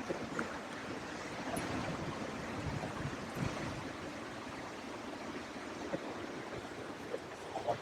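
Strong wind blowing across an open golf course, a steady rushing noise with a few faint clicks.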